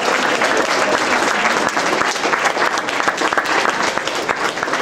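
A roomful of people applauding steadily, many hands clapping at once.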